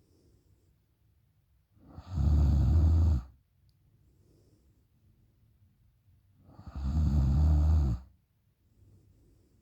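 A woman snoring loudly through her open mouth: two long rumbling snores about four and a half seconds apart, with faint breathing between them.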